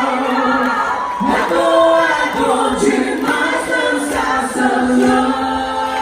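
A choir of voices singing a cappella, holding long notes that change pitch every second or so.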